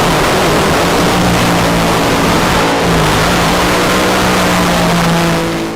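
Jet ski engine running steadily under a loud rushing hiss, a vehicle sound effect laid over the toy. Its pitch holds with a slight dip about three seconds in, and it fades just before the end.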